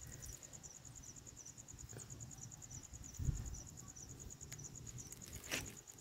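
Crickets chirping steadily in a high, even rhythm, with a soft low thump about three seconds in.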